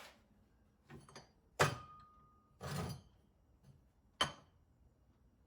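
A handful of separate sharp knocks and clanks of metal being handled, the loudest followed by a short ringing tone.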